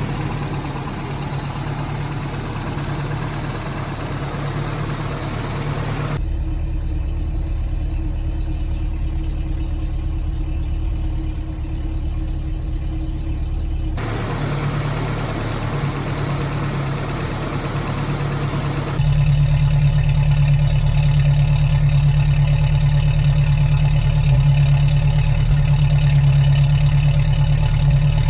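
Toyota 20R inline-four engine running at a steady idle on a Weber 32/36 carburettor. Its sound changes abruptly several times, losing its upper range for a stretch and turning louder and deeper about two-thirds of the way in.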